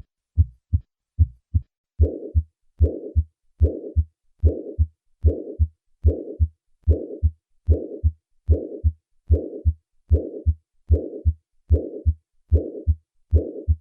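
Heart sounds with the decrescendo systolic murmur of acute mitral regurgitation, at about 75 beats a minute. The first couple of seconds are plain lub-dub beats. Then each beat gains a whooshing murmur that starts loud right after the first heart sound and fades away before the second, as left atrial and ventricular pressures equalise late in systole.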